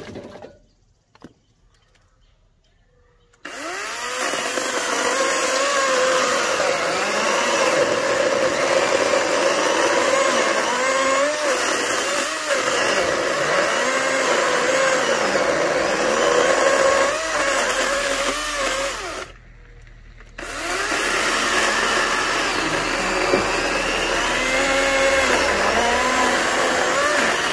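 Greenworks 80V battery chainsaw cutting oak slabs: a steady electric motor and chain whine whose pitch wavers and dips as the chain loads in the wood. It starts after about three seconds of near silence and drops out for about a second two-thirds of the way through.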